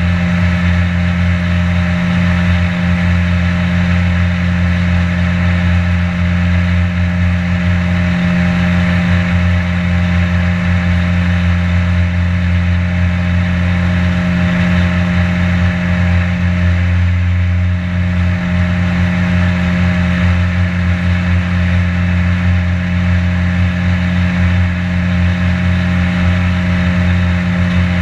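Boat motor running steadily while the boat travels: a constant low drone with a few steady higher tones and a hiss over it.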